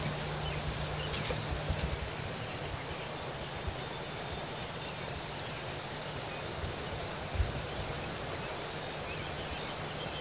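Insect chorus: one continuous, steady, high-pitched trill.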